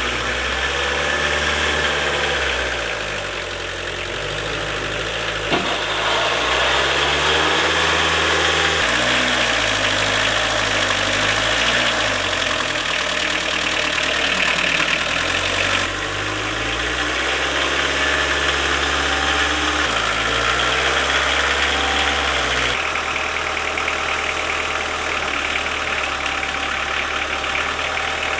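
Engine of a small homemade front-loader tractor running, its speed rising and falling as the hydraulic loader scoops wood chips and tips them into a trailer.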